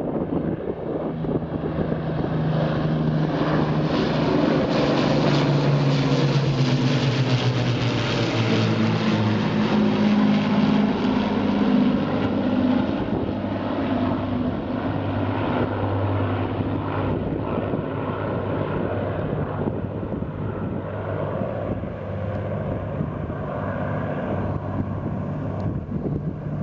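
Two four-engined Avro Lancaster bombers and two Spitfires flying past in formation, the even drone of their Rolls-Royce Merlin piston engines with several engine tones beating together. It swells to its loudest a few seconds in, then slowly eases off, with wind noise on the microphone underneath.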